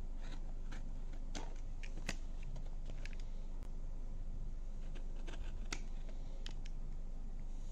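A small knife blade slitting the paper tape on a cardboard box, heard as scattered light clicks and scratches, a dozen or so spread unevenly. A steady low hum runs underneath.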